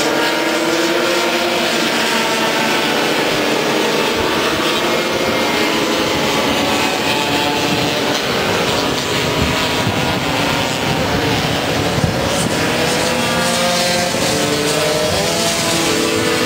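A field of two-stroke Vespa and Lambretta racing scooters running at full throttle around the circuit. Several engines buzz at once, their pitches rising and falling as they rev through the gears and pass, and the pack grows loud near the end.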